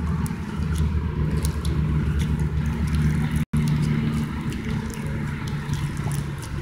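A steady low rumble with scattered small clicks and pops of slime being poked and squished, and a brief cut-out of all sound about halfway through.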